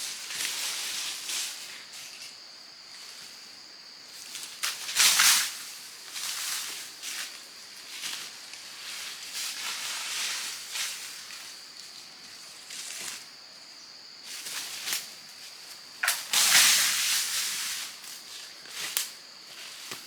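Irregular rustling and scraping of leaves and brush during outdoor work, louder about five seconds in and again near the end, over a steady high hiss.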